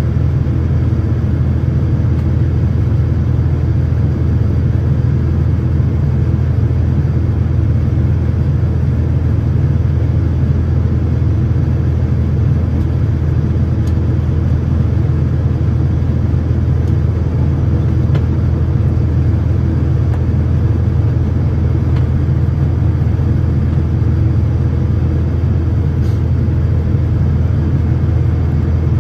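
Boeing 787-9's GE GEnx-1B turbofan engines heard inside the cabin in flight, a steady low rumble that holds constant.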